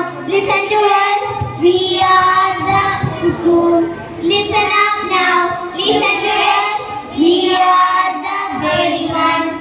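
A group of young children singing a song together into a microphone, in phrases of held notes.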